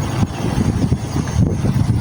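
Wind buffeting the microphone: a loud, uneven low rumble that swells and dips throughout.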